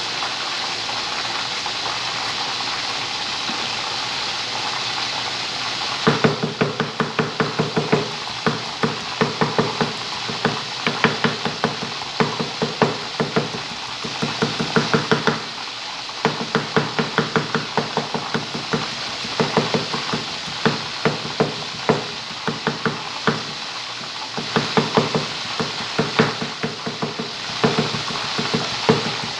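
Cleaver chopping garlic on a thick wooden chopping block. About six seconds in, after a steady hiss, it breaks into rapid runs of knocks, several a second, with short pauses between runs, mincing the garlic fine.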